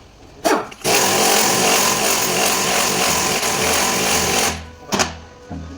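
A loud, steady rushing hiss lasting about three and a half seconds, with a short burst just before it and another just after, typical of a blast of air or spray.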